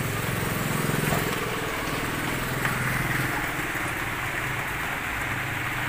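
Toyota Kijang Super's four-cylinder carburetted engine idling steadily, its spark plug leads just set to the 1-3-4-2 firing order to cure a stumbling misfire.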